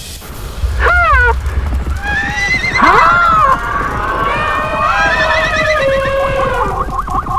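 Horse whinnying, several loud neighs that waver and fall in pitch, over hooves clip-clopping.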